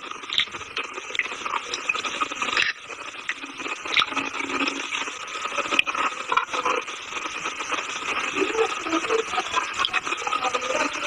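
Close-miked crunching and chewing of a hard, brittle, chalk-like material, a dense run of small cracks and crackles with a few sharper snaps.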